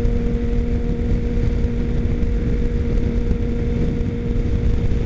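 Motorcycle riding at steady freeway speed, heard from the bike: heavy wind rush on the microphone over an even engine hum that holds one pitch throughout.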